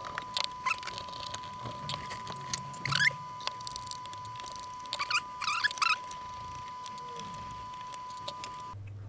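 Screwdriver turning out small screws from a metal circuit-board shield, with scattered clicks and short rising squeaks, loudest about three seconds in and again around five to six seconds. A steady high-pitched whine runs underneath and cuts off suddenly near the end.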